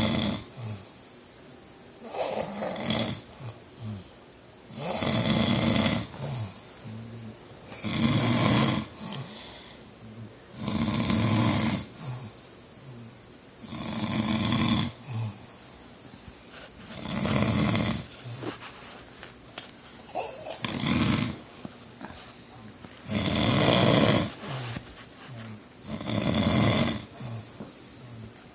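A man snoring loudly in his sleep: about ten loud snores, one roughly every three seconds, each lasting around a second, with softer sounds between them.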